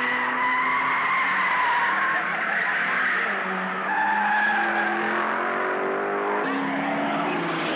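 Racing saloon cars at speed, engines running hard with tyres squealing. The engine note climbs in steps near the end.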